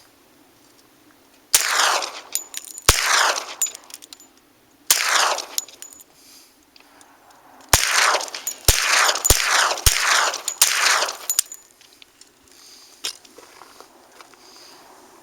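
About eight 10mm rifle shots from a semi-automatic Glock 20–based carbine with a 16-inch barrel, each trailed by a short echo. Three shots a second or two apart, then a quicker string of about five.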